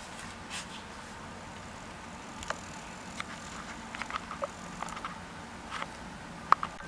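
Irregular light clicks and taps over a steady faint hiss, the sharpest click about six and a half seconds in.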